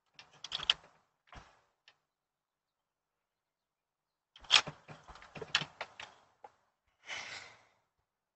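Front door being unlocked and opened: clusters of sharp clicks, knocks and rattles of the latch and lock, then a short rush near the end as the door swings open.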